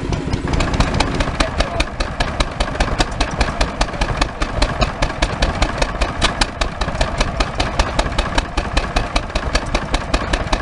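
Vintage stationary engine running steadily, with a rapid even beat of sharp knocks, about five a second, over a low rumble.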